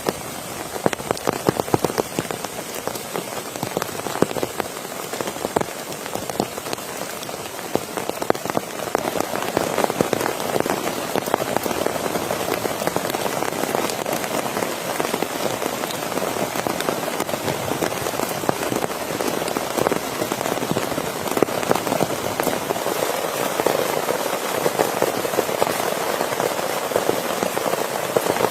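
Steady rain, with a dense patter of drops striking a surface, growing a little heavier about a third of the way in.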